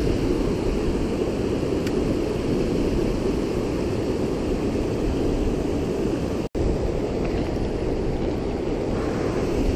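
Steady rush of high, fast creek water pouring over a low dam and through riffles, with a momentary dropout about two-thirds of the way through.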